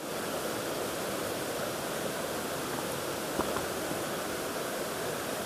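Shallow river running over rocks: a steady rush of flowing water, with one faint click about three and a half seconds in.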